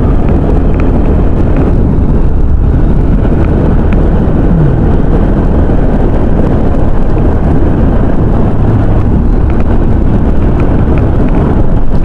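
Motorcycle riding at steady speed, heard from a helmet-mounted microphone: a steady, loud rush of wind and road noise with the engine running underneath.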